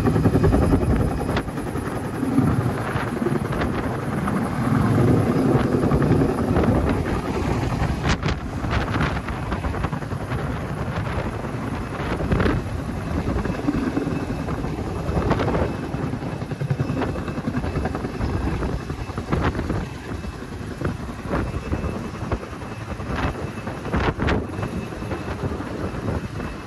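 Firefighting helicopter hovering low over a lake to fill its slung water bucket, then lifting away overhead with the full bucket. The rotor and engine noise is steady, loudest at first, and eases off somewhat near the end.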